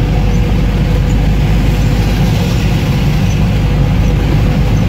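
Steady drone of a V8-engined UAZ off-roader heard from inside its cab while cruising, with the hiss of tyres on a flooded, rain-soaked road.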